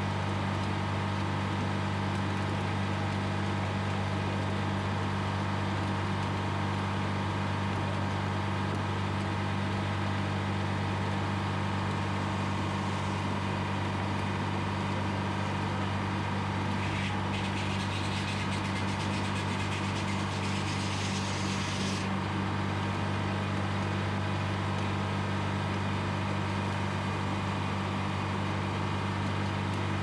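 Supercharged two-stroke Detroit Diesel 4-71 four-cylinder running steadily, driving a Frick sawmill's large circular head saw. Partway through, the blade cuts lengthwise through a log with a rising rasping hiss that is loudest for about five seconds and stops suddenly as the cut ends.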